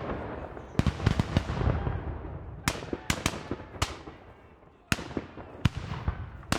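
War-zone ambience: sharp gunshots, some single and some in quick clusters of three or four, each with a long echoing tail, over a steady low rumble.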